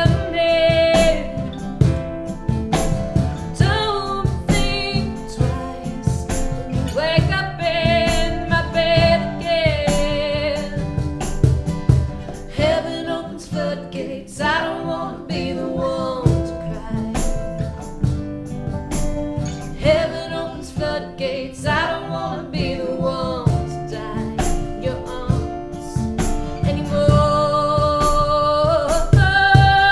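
Live acoustic band playing a song: a woman sings lead over two strummed acoustic guitars and a keyboard, with a cajon keeping a steady beat.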